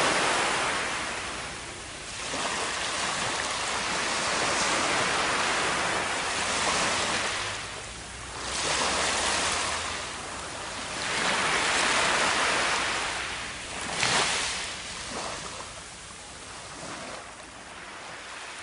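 Small ocean waves washing up onto a sandy beach, the surf swelling and drawing back every few seconds.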